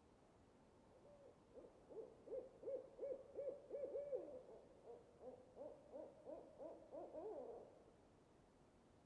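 An owl hooting: a rapid series of about a dozen short rising-and-falling hoots over some six seconds, with a lower line of hoots joining in during the second half.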